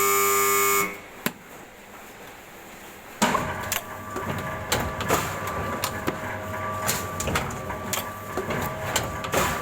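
Three-side book trimming machine: a loud electric buzzer sounds and cuts off about a second in, then after a short lull the machine starts up about three seconds in and runs with a steady hum and irregular clicks and knocks.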